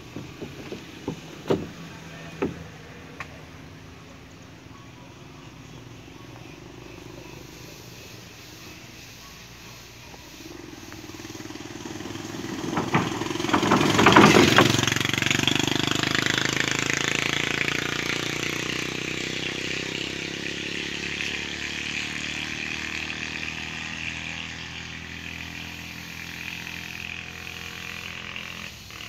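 Small motorcycle riding past, its engine rising as it comes closer, loudest about fourteen seconds in, then fading slowly as it moves away. A few sharp clicks in the first few seconds.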